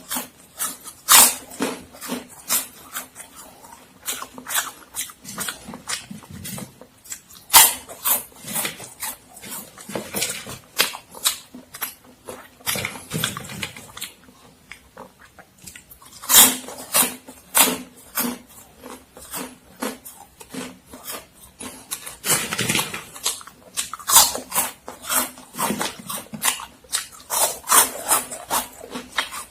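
Close-miked biting and chewing of Momogi crunchy corn stick snacks: a run of sharp crunches with louder bites every few seconds.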